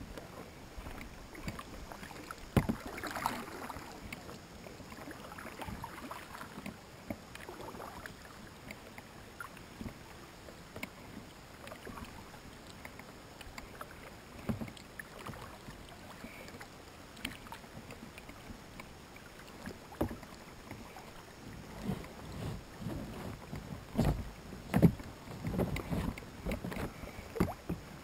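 Small boat being paddled on the river: irregular paddle splashes and knocks, coming thicker and louder near the end.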